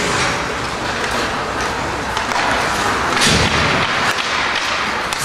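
Ice hockey play in a rink: a steady wash of arena noise, with a louder burst of hissing noise a little past three seconds and a few sharp knocks after it.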